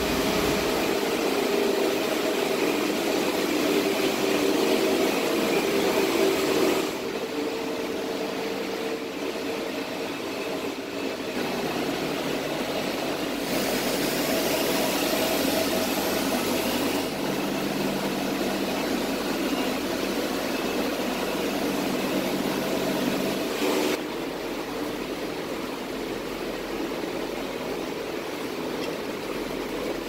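Many cooling fans of a crypto mining farm running together, GPU mining rigs, ASIC miners and a large drum fan: a steady rush of air with humming tones underneath. The level drops at about 7 seconds and again at about 24 seconds.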